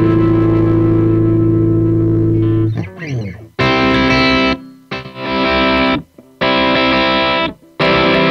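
Distorted electric guitar played back through Steinberg's VST Amp Rack amp simulator in Cubase. A chord rings for nearly three seconds and slides down in pitch, then chords are struck about once a second with short silent breaks between them.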